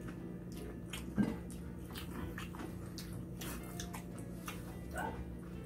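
Eating sounds: chewing and small mouth noises, with light clicks of chopsticks against the metal noodle bowls and the plate, over a steady low hum.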